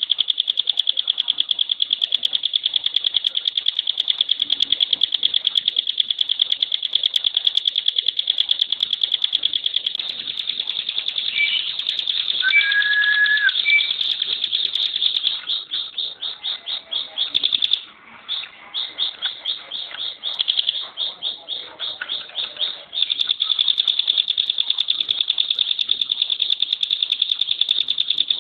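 Ciblek pinus, a prinia, singing its rapid-fire 'tembakan' trill: a long run of high, very tightly packed notes. Midway it breaks into shorter separate bursts with a few lower whistles, then goes back to the unbroken trill.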